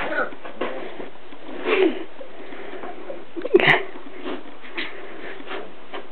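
Six-week-old Portuguese Water Dog puppies making small snuffling noises over a steady hiss, with two short, louder puppy sounds about two and three and a half seconds in.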